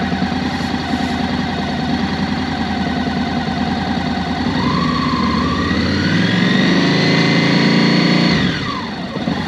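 Warm Honda NC700X's 670 cc parallel-twin engine idling, then revved up about four and a half seconds in, held at higher revs for a couple of seconds, and dropped quickly back to idle near the end.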